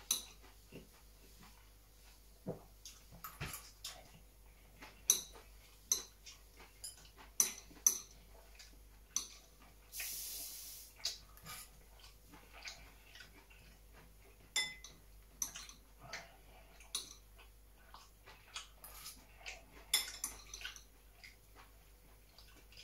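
Metal chopsticks clicking and scraping against a bowl while eating, in scattered light taps one or two a second. A brief hiss lasts about a second near the middle.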